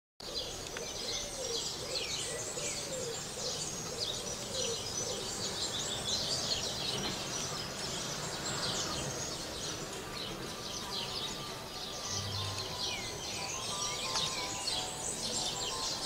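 Many small birds chirping busily, a dense overlapping chatter of quick high chirps. Music comes in under the birds over the last few seconds.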